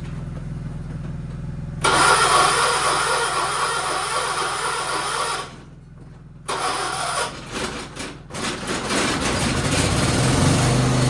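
1976 John Deere 300 garden tractor's starter cranking the engine for a few seconds, stopping, then cranking again in short choppy bursts until the engine catches, about three-quarters of the way in, and runs steadily. The hard start comes from a starter that the owner thinks is going bad and a weak battery.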